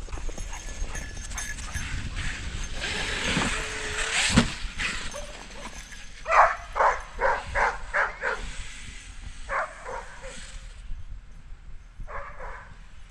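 A dog barking in a quick run of about seven barks, roughly three a second, then a couple more single barks. A few seconds before the barking there is a rushing noise and a sharp knock.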